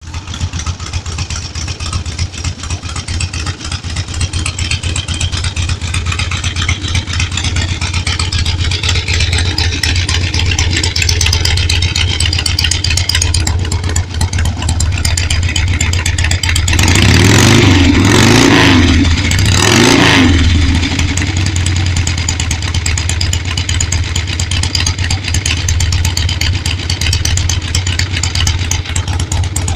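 1977 Harley-Davidson Sportster's air-cooled Ironhead V-twin running on its first start after a ground-up rebuild. It idles, takes a few throttle blips just past halfway with the pitch rising and falling each time, then settles back to idle.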